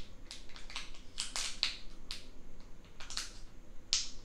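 Small plastic salad dressing packet crinkling and crackling as it is worked with fingers and teeth to tear it open, which is hard to do. A string of short crackles, with a sharper one near the end.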